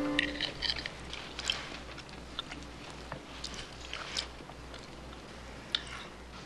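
Forks and knives clinking and scraping on dinner plates at an otherwise quiet table: scattered short clicks, some with a brief ring, at irregular intervals. The last of a guitar note fades out at the very start.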